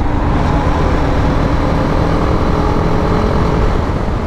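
Motorcycle running at a steady highway cruise, heard from the rider's seat: a steady engine drone under dense wind and road rumble.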